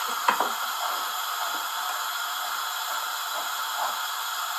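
Metal spoon stirring hot milk in an aluminium saucepan on a gas hob, over a steady hiss, with one sharp clink of the spoon against the pan about a quarter second in.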